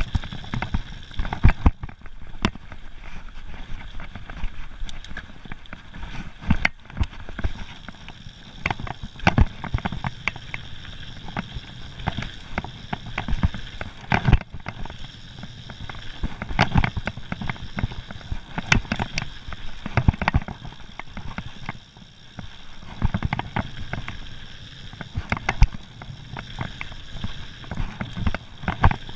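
Mountain bike riding fast down a rocky, gravelly trail: tyres rolling over loose stones with a steady rumble, and the bike rattling with frequent sharp knocks as it jolts over rocks.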